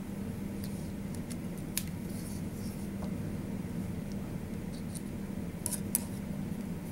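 A few faint clicks of small plastic and metal parts being handled as a spindle assembly is put back together: one about two seconds in and a short cluster near the end, over a steady low hum.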